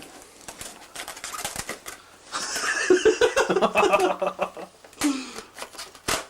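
Small clicks and rustling from handling, then a couple of seconds of laughter starting about two seconds in, with a sharp click near the end.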